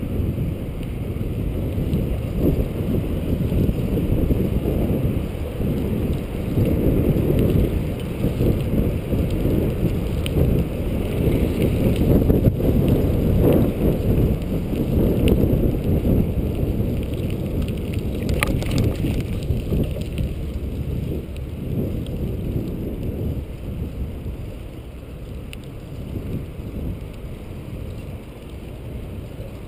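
Wind buffeting the microphone and tyre rumble of a bicycle rolling along a paved trail, a steady low rumble with a few light clicks and rattles around the middle. The rumble eases somewhat near the end.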